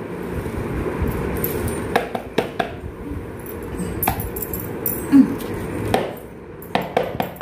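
Rice grains of bamboo dum biryani rustling out of a bamboo tube onto a steel plate, with several sharp knocks as the tube is tapped against the plate to shake the rice loose.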